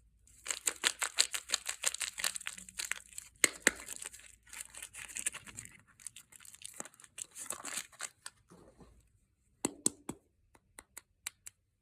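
Soap packaging being unwrapped by hand: a wrapper torn open and crinkled in quick crackly rustles for the first several seconds, then a few separate crisp clicks and crackles near the end.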